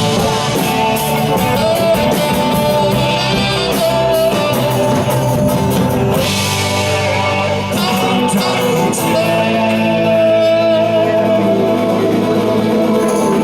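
Live band playing a song with guitar, drum kit and a singing voice, settling into long held notes in the last few seconds.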